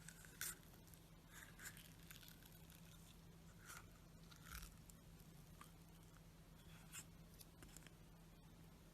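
Slime being pressed and worked very quietly, giving a scatter of faint, short crackles and soft clicks over a low steady hum.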